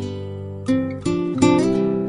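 Background music: an acoustic guitar playing, with chords struck about a second in and again shortly after, each fading away.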